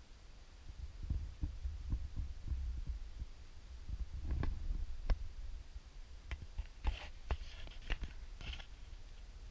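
Handling and movement noise: irregular soft low thumps with a few sharp clicks and light rustling, as a handheld camera is moved through a small wooden room.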